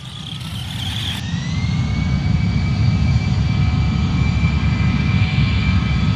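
Electric motor of a Redcat Blackout XTE RC truck, whining as it speeds up and comes closer, growing steadily louder. The whine rises in pitch in the first second or so, then holds steady over a low rumble.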